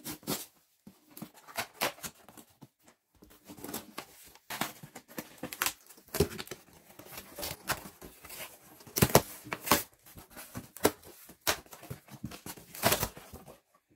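Corrugated cardboard shipping box being opened by hand: the lid and inner flaps rubbing, scraping and rustling, with irregular sharp knocks as the cardboard is handled, several louder ones in the second half.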